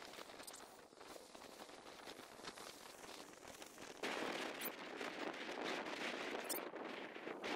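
Small ATV engine running with a crackly, popping exhaust, getting clearly louder about four seconds in as it pulls on a rope tied to a storm-damaged tree.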